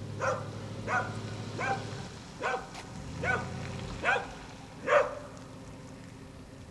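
A dog barking in a steady series, about seven barks a little under a second apart, each dropping in pitch, stopping about five seconds in. It is alert barking at a delivery truck backing up to the house.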